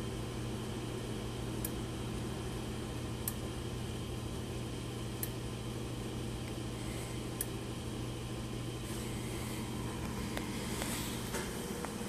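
Rotary light switch built into a brass water shut-off valve clicking as its handwheel is turned. There are four sharp clicks about two seconds apart, each one switching the bulb on or off, over a steady low hum. Softer handling scuffs come near the end.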